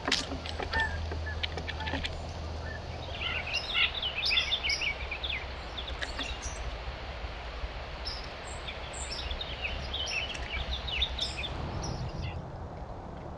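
Birds chirping in two short flurries of quick, high notes, over a steady low hum and hiss from the trail camera's microphone, with a few faint clicks.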